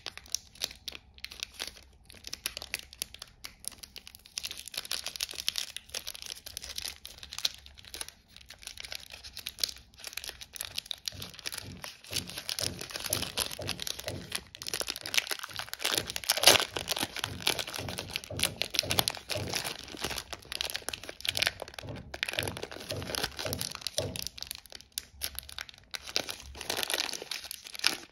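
Foil candy wrappers crinkling and tearing as fingers unwrap them: a dense run of crackles that grows fuller and louder about halfway through.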